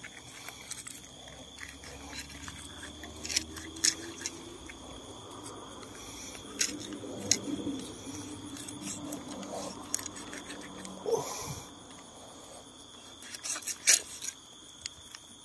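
Machete blade cutting and scraping a small snakehead fish on stony ground: scattered sharp clicks and short scuffs. A steady high insect trill runs behind.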